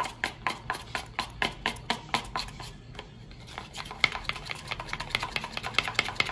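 Spatula stirring melted chocolate in a bowl, scraping and knocking the bowl in quick regular strokes about five a second, with a short pause about three seconds in. The chocolate is being worked to dissolve its last unmelted pieces.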